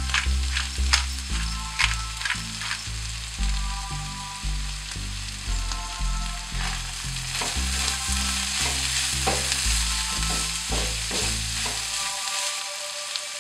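Minced beef, onions and peppers sizzling steadily in a hot frying pan, with the short scrapes of a wooden spoon stirring through them.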